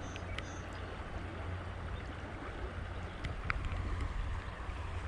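Steady rush of flowing creek water with a low rumble underneath, and a few faint clicks.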